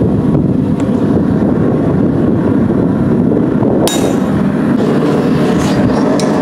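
Steady low roar of a blacksmith's forge running, with one sharp metallic clink about four seconds in.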